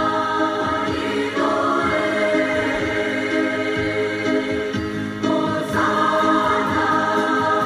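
Background music of a choir singing in long held chords, which change about a second and a half in and again about five seconds in.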